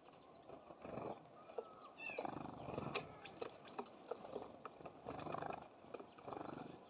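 Small songbirds at a feeder giving short, high chirps, most of them bunched in the middle seconds, with one lower falling note about two seconds in. Rougher low rustling bursts come in between.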